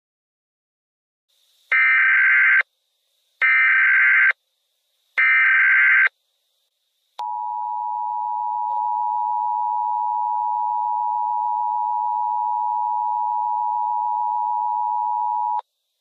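Emergency Alert System header: three short, identical bursts of SAME digital data tones, each about a second long, followed by the steady two-tone EAS attention signal for about eight seconds before it cuts off, announcing a Civil Danger Warning.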